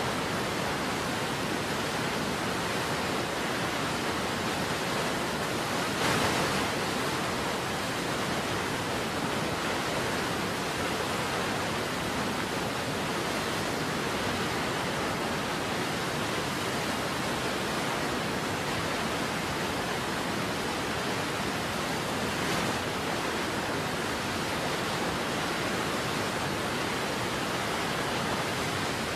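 Steady, even rush of a waterfall, with a brief swell about six seconds in.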